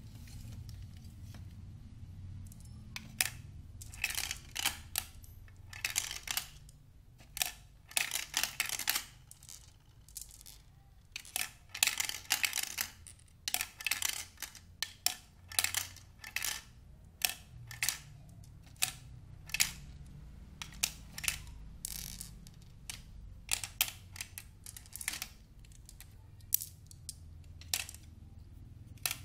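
Irregular sharp plastic clicks and clacks from handling and fitting parts of a Battle B-Daman Gatling Hades marble-shooter toy, coming in quick clusters, most densely about halfway through.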